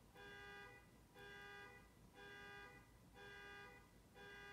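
Car alarm sounding faintly, one steady-pitched tone blaring in short blasts about once a second.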